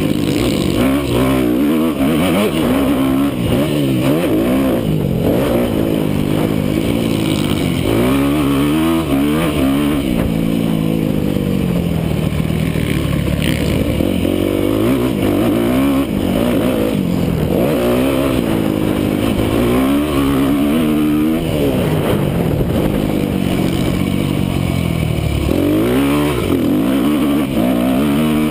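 Yamaha YZ250F single-cylinder four-stroke motocross engine revving hard, close up. Its pitch climbs and drops again and again as the throttle is opened and rolled off and the gears change around the track.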